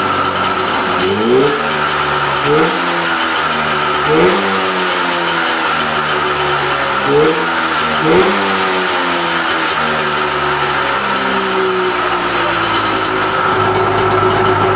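Vintage Polaris snowmobile's two-stroke engine, just revived after sitting abandoned for over 20 years, idling and blipped up about five times on the throttle, each rev rising briefly and falling back to idle. Near the end it settles into a steadier, slightly heavier idle.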